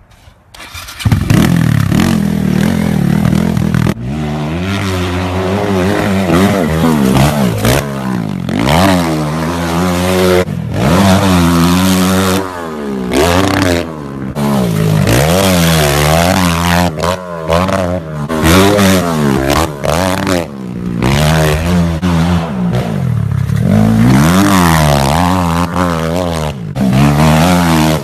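Pit bike engine revving hard, its pitch climbing and dropping again every second or two as it is ridden, with a few brief cuts in the sound. It starts about a second in.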